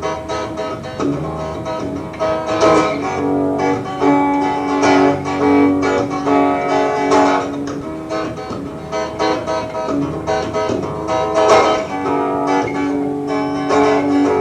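Guitar intro to a song: chords strummed and picked, ringing on, with a new chord struck every second or two.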